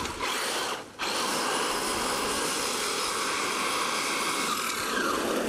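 1/5-scale RC monster truck with twin Castle Creations Mamba Monster 2200kV brushless motors running hard on a four-cell LiPo: the electric motors whine over the noise of the tyres churning through loose dirt, with a brief dip about a second in.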